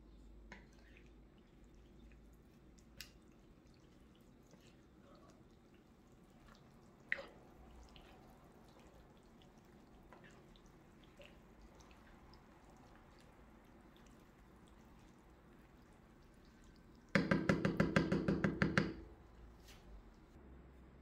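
Wooden spoon stirring a wet, chunky vegetable stew in a pan: soft wet squelching with a few light taps, and one sharper knock about seven seconds in. Near the end a loud, rapid rattle lasts about two seconds.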